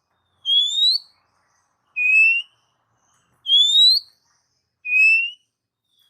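Oriental magpie-robin (kacer) singing clear whistled notes that each rise in pitch. They come in two-note phrases, a higher upslurred whistle followed by a lower one, and the phrase is given twice about three seconds apart.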